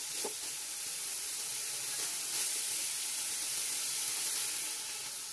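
Pork belly and red curry paste frying in a hot metal pot, making a steady sizzle while water is poured in and stirred with a ladle.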